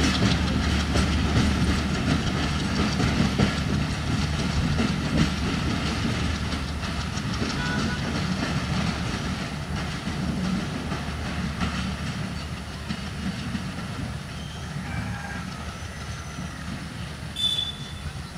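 Broad-gauge passenger train coaches rolling away over the rails, their wheels clattering along the track, the sound slowly fading as the train recedes. A short high-pitched ring sounds near the end.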